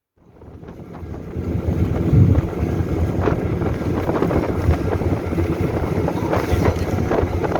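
A motor vehicle running under way, its engine mixed with heavy wind buffeting the microphone. The sound fades in over the first second or two, then stays steady with a few knocks.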